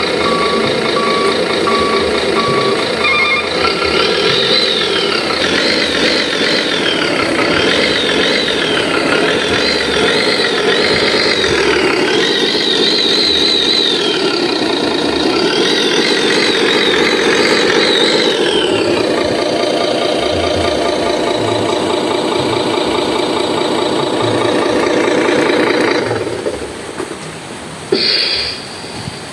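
A remote-control miniature truck's sound system playing a simulated truck engine. High warbling electronic tones that rise and fall run over it from about four to eighteen seconds in, and the sound drops away near the end.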